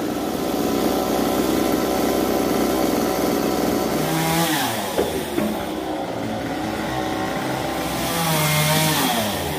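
Gas chainsaw running at high revs while cutting wood. Its engine pitch drops as the throttle comes off about halfway through, and again near the end.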